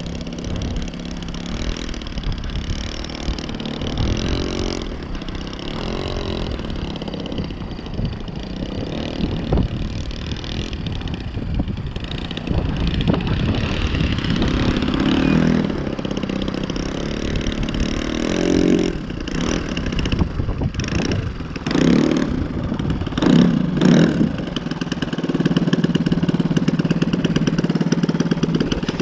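Unmuffled Saito FG-21 single-cylinder four-stroke petrol engine on a radio-controlled model Cub running at low throttle, with several brief bursts of throttle, the last pair a little over two thirds of the way in, before it settles to a steady idle near the end.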